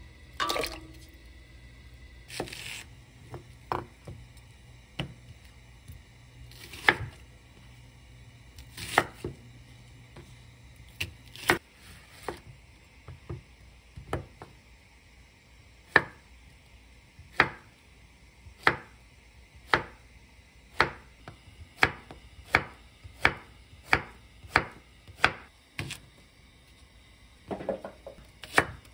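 Diced radish dropped into a pot of water with a short splash, then a kitchen knife cutting Korean zucchini on a wooden cutting board, single sharp knocks of the blade on the board, settling into about one stroke a second. Near the end the knife starts on a thick green onion.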